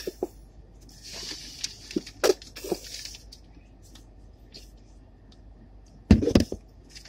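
Close-up eating sounds: scattered crunches and clicks of someone biting into crispy fried chicken, with a crackly stretch about a second in and one loud low thump about six seconds in.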